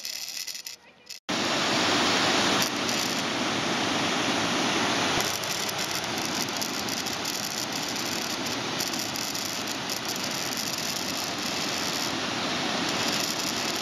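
Water rushing steadily over a concrete spillway ledge into a pool, cutting in suddenly about a second in.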